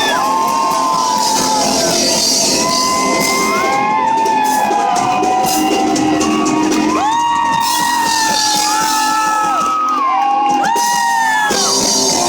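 Loud live rock music from a band on stage, with held sung notes and a crowd shouting and whooping along.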